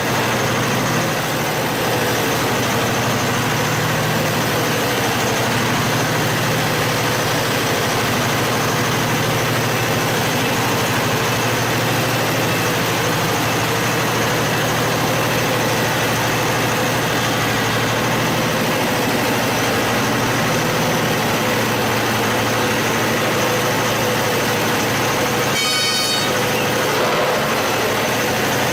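Heavy machinery engine running steadily with a constant, even noise. There is a short horn toot about 26 seconds in.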